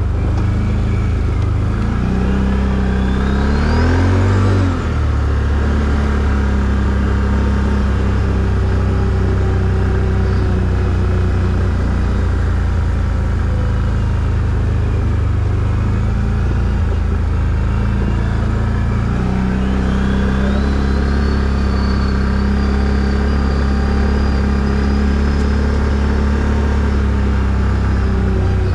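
ATV engine running while ridden, a steady low drone with a whine above it. It revs up a couple of seconds in, drops back suddenly just before five seconds, then climbs again about twenty seconds in, the whine rising and holding steady.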